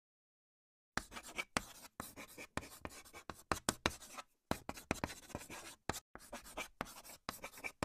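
Chalk scratching on a blackboard in quick, irregular strokes, starting about a second in with a brief pause a little past the middle.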